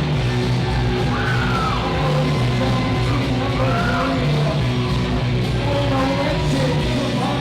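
Hard rock wrestler's entrance music with a yelled, sung vocal over a steady low bass line.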